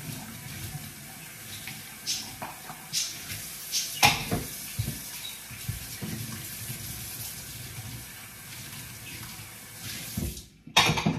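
Kitchen tap running into a stainless steel sink while dishes are washed by hand, with scattered knocks and clinks of crockery against the sink. The water stops shortly before the end, followed by one sharp knock.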